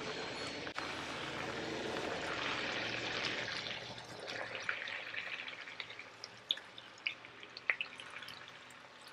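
Battered onion rings deep-frying in hot beef tallow in a cast iron skillet: a steady sizzle and bubbling, loudest for the first few seconds, then settling to a quieter sizzle with scattered sharp pops.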